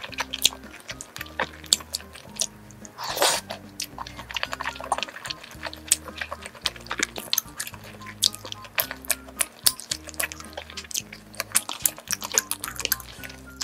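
Metal kitchen scissors snipping through rice cakes and egg in thick cream sauce: many quick wet clicks and squelches, with a longer squelch about three seconds in, over soft background music.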